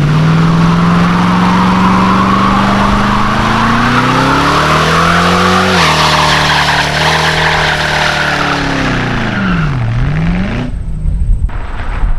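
Ford 4.6L V8 revving hard while the rear tires spin and squeal in a burnout. The engine pitch climbs steadily, drops sharply about six seconds in, climbs again, then falls and rises once more near ten seconds. The tire squeal runs underneath, and everything cuts off about eleven seconds in.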